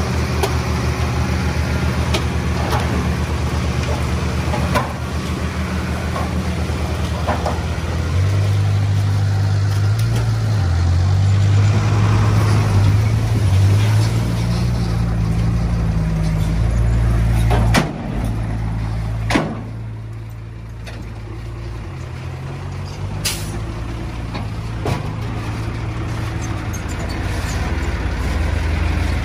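Heavy diesel engine of earthmoving machinery working, its pitch rising and falling as the load changes, with a few sharp metal clanks.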